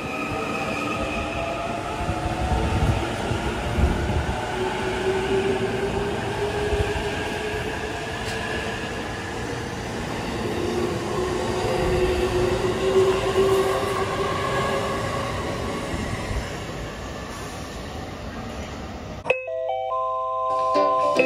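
JR East E657 series limited-express train moving along a station platform: steady wheel and running rumble with the electric traction motors' whine, several tones slowly gliding in pitch. About nineteen seconds in it cuts off abruptly and light background music begins.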